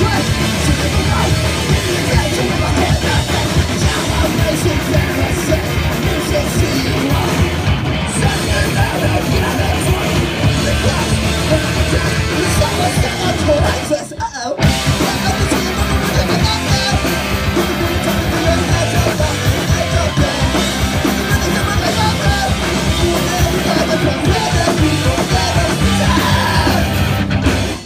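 Punk band playing live and loud, with drums and shouted vocals. The music drops out for a split second about halfway through, comes straight back in, and stops abruptly at the end of the song.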